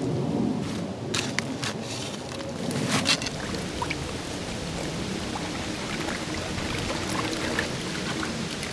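A shovel scraping and striking into gravelly creek-bed material, several sharp scrapes in the first few seconds. After that comes a steady sound of running water, trickling and pouring, as the dug material is worked by hand in a shallow pool of creek water.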